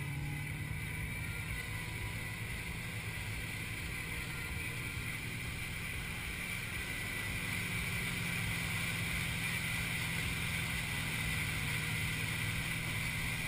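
Malibu Wakesetter wake boat's inboard engine running under throttle, with water rushing past the hull and wind on the microphone. The engine note steps up and grows a little louder about halfway through.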